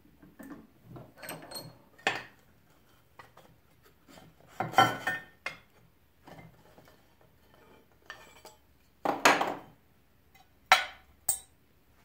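Aluminium channel pieces being handled and set against each other on a bench vise: several sharp metallic clanks and knocks, loudest about five seconds in and near the end, with light scraping in between.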